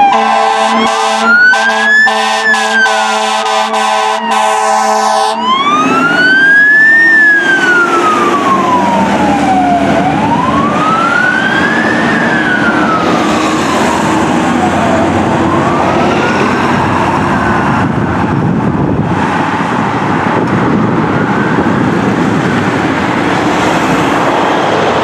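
Fire engine siren wailing in slow rises and falls, one sweep every few seconds, with a blaring air horn over roughly the first five seconds. The wail grows fainter after about fifteen seconds and gives way to passing road traffic.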